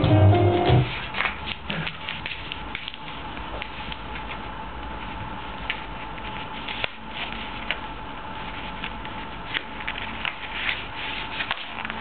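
Sheets of drawing paper rustling and crackling, with many small scratches and taps, as a kitten rolls on them and paws at them. Music stops about a second in.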